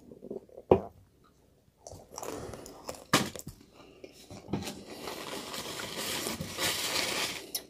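A bite of fried chicken with a sharp crunch about a second in, then a paper food wrapper rustling and crinkling as it is folded up, densest over the last few seconds.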